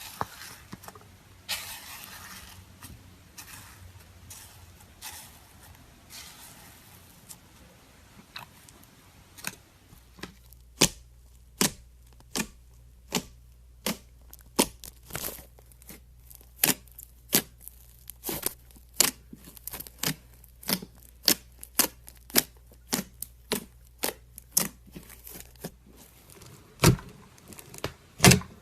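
Slime being squeezed and pressed by hand: soft, wet rustling at first, then from about ten seconds in a steady run of sharp pops, about two a second, with a couple of louder pops near the end.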